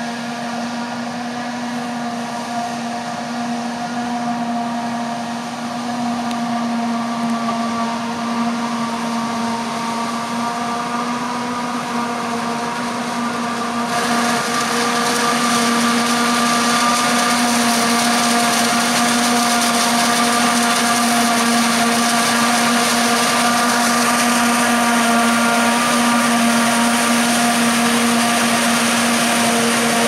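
Claas Jaguar 970 forage harvester chopping maize: a steady, even-pitched whine from its spinning cutterhead and blower, running at full work, over the hiss of chopped crop blowing through the spout. From about halfway it gets louder and harsher, with a John Deere tractor and trailer running alongside.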